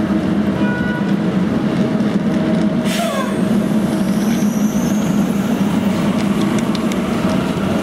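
Translohr rubber-tyred tram giving off a steady low electric hum, with a brief falling tone about three seconds in and a faint rising whine a little later.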